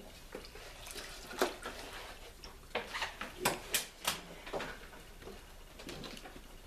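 Scattered light taps and clicks of a thin cedar plank being handled and set against a wooden canoe hull, with several sharper knocks a little past the middle.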